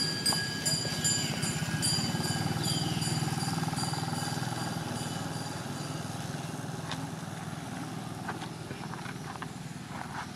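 A motor vehicle's engine, most likely a motorbike, running past and fading as it moves away. A high, steady, pulsing buzz runs alongside it and stops about halfway through.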